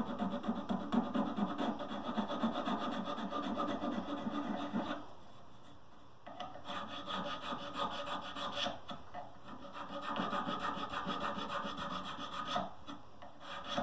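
Small hand file rasping back and forth across a carved wooden piece, in quick short strokes. They pause for about a second around five seconds in, then go on.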